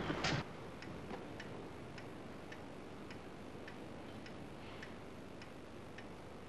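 A brief sound cuts off just after the start. Then a clock ticks steadily and faintly, about two ticks a second, over a low hiss.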